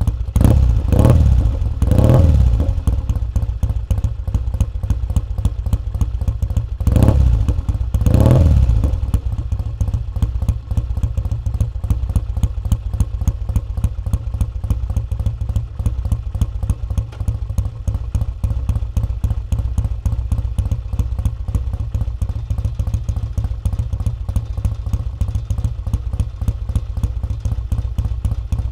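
1968 Triumph T100C's 500cc parallel-twin engine running just after a cold start: revved in three short blips in the first couple of seconds and twice more around seven and eight seconds in, then settling into a steady, even idle.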